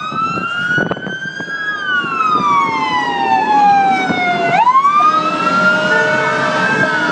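Fire truck siren wailing as the truck passes close by, its pitch rising and falling in long sweeps, with two siren voices overlapping. A steady horn-like tone joins in about five seconds in.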